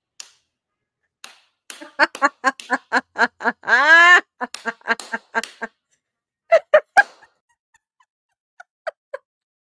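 A woman laughing hard: a rapid run of short laughs, about four a second, swelling into a long rising whoop about four seconds in, then three loud laughs and a few fainter ones near the end.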